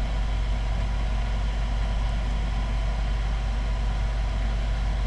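6-inch inline duct fan running with a steady hum.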